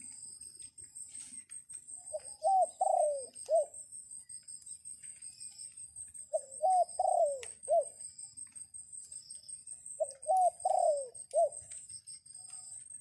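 Dove cooing: three phrases of about four coos each, roughly four seconds apart, from a decoy dove calling to wild doves. A steady high-pitched whine runs underneath.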